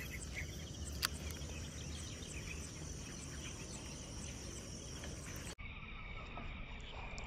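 Steady outdoor insect chorus, an even high-pitched buzz of crickets, with a single short click about a second in. The background changes abruptly about five and a half seconds in.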